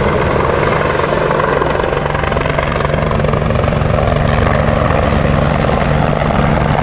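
A light helicopter in flight, its rotor and engine running steadily.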